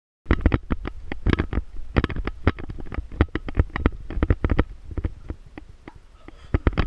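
Handling noise on a body-worn GoPro as the wearer walks in a gorilla suit: irregular knocks and thumps, about three or four a second, with a low rumble under them, starting suddenly a moment in.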